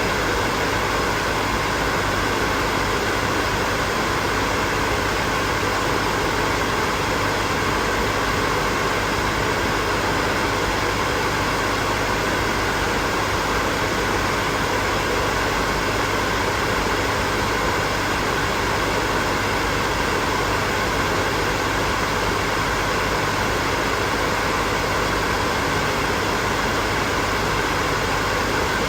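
Hair dryer running steadily: a constant whooshing of fan and airflow with a faint even hum, no change in speed.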